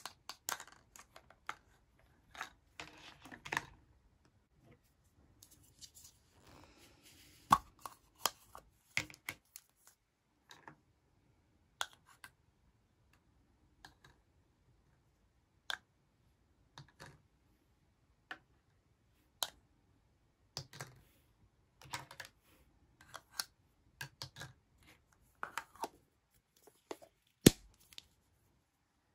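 Plastic Minnie Mouse toy tea-set pieces being handled: cups, spoons and saucers clicking and tapping against each other in scattered sharp knocks, with a brief scraping rustle about six seconds in. The loudest knock comes near the end.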